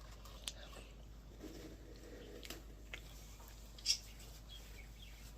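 Quiet eating sounds from a chocolate ice cream cone: a few sharp mouth clicks and bites, the loudest about four seconds in.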